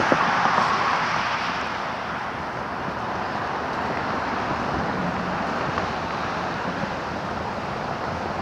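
Road traffic on a busy multi-lane street: a vehicle passes, loudest in the first second or two and fading, then steady tyre and engine noise from the traffic.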